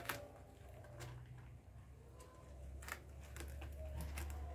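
Rabbits nibbling and chewing leafy green stems: a few faint, crisp crunching clicks at irregular intervals over a low steady hum.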